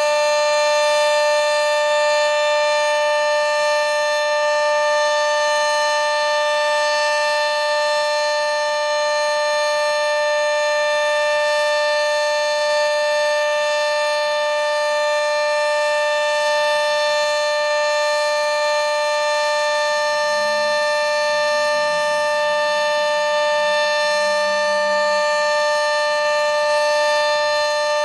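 Sentry 40V2T two-tone electromechanical warning siren sounding a loud, steady two-note chord, held at one pitch, during a routine siren test.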